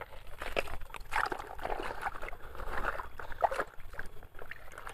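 Hands rummaging in a toy dump truck and pulling a toy out: irregular rustling and scraping with small plastic knocks.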